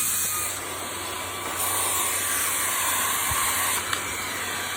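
Fabuletta cordless stick vacuum running, a steady motor whine over rushing air. Its level drops about half a second in and comes back up about a second later as the airflow changes.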